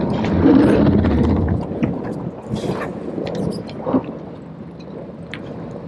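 Low rumble of the sailboat motoring slowly, mixed with wind on the microphone. It is loudest for the first second and a half, then eases to a steadier wash, with scattered light knocks and clicks on deck.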